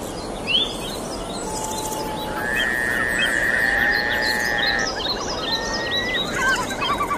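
A chorus of birds calling, with many short chirps and rising whistles over a steady background hiss, and one long held whistle through the middle.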